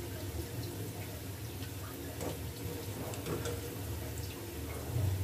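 Potato rolls deep-frying in hot oil, a steady sizzle with many small crackles and pops, over a low steady hum.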